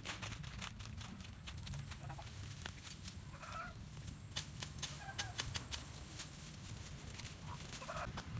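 Chickens clucking a few times, over frequent sharp crackles and snaps of dry leaves and bamboo twigs.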